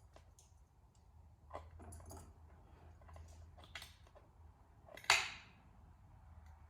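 Small clicks and knocks of tools and parts being handled on a workbench. About five seconds in comes one louder clack, like a hard object being set down, which rings briefly.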